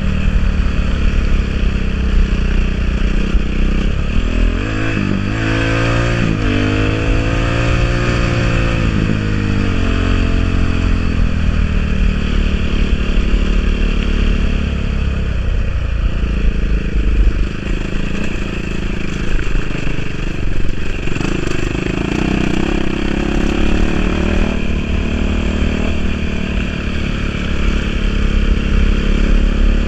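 Enduro dirt bike engine running on a ride, its revs rising and falling several times about five to ten seconds in, then running on more steadily.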